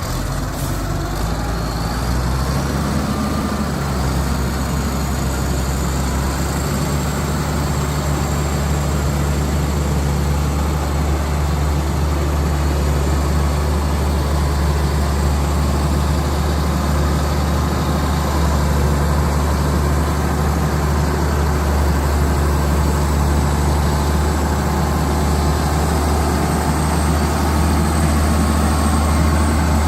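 Diesel engine of a Terex A600 60-ton mobile crane running steadily at idle, a low steady rumble.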